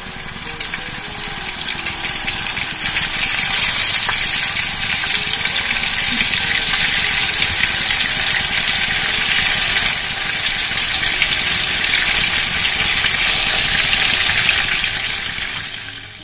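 Marinated chicken pieces frying in hot vegetable oil and butter in a frying pan, a steady dense sizzle. It swells about three to four seconds in as more pieces are dropped into the oil.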